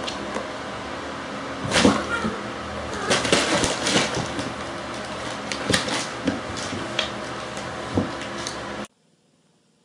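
Two grey cats play-fighting on a wooden floor: a run of thumps and knocks as they tumble and scrabble, over a steady hiss. It cuts off suddenly near the end.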